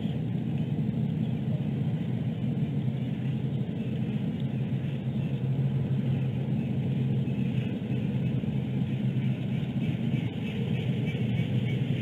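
Steady low rumble and hiss of background noise picked up by an outdoor nest-camera microphone, with no clear sound from the eagle.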